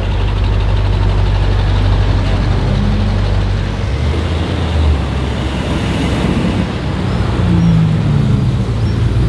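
Car engine running at low revs: a deep, steady rumble over street traffic noise. Its low note changes about four seconds in, with no revving up or down.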